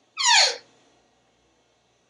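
African grey parrot giving one short, squeaky call that glides quickly down in pitch, lasting about half a second.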